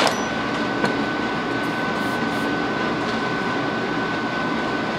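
Steady whooshing of a running shop fan with a thin, constant high whine through it.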